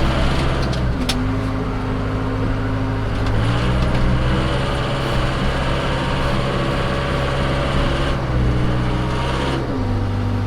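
Case 580 Super K backhoe's diesel engine running while moving snow. Its pitch steps up and down several times as engine speed changes, with a sharp click about a second in.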